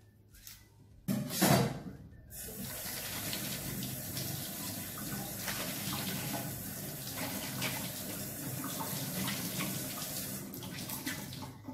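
Kitchen tap running into a stainless-steel sink while wood ear mushrooms are rinsed by hand under the stream. The water stops near the end. About a second in there is a brief loud burst.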